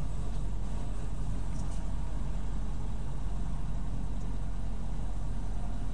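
Semi-truck's engine and road noise heard from inside the cab as the truck rolls slowly: a steady low rumble.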